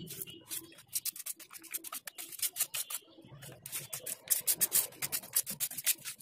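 Stiff bristles of a chain-cleaning brush scrubbing a motorcycle chain cover soaked in diesel, in quick repeated back-and-forth strokes, wet and scratchy.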